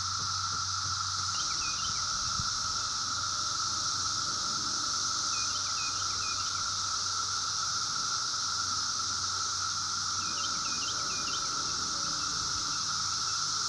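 Cicadas buzzing in a steady, unbroken drone. A bird chirps briefly in three short clusters over it, about a second and a half in, around five seconds in, and near ten seconds in.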